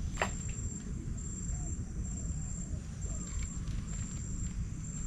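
An insect trilling at a steady high pitch in phrases of about a second with short breaks, over a low rumble. A single click comes shortly after the start.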